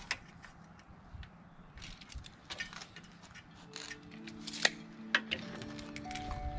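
Scattered clicks and knocks of a table saw's metal rip fence being slid along its rail and set, the blade not running. Background music comes in about halfway through.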